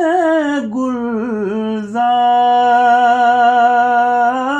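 A solo voice singing an Urdu naat, drawing out the word "hue" in a long melisma: a wavering, ornamented run in the first two seconds, then one long steady held note.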